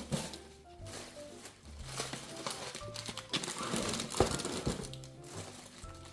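Plastic Easter grass crinkling as it is handled and packed into a box, over background music of short, stepping notes.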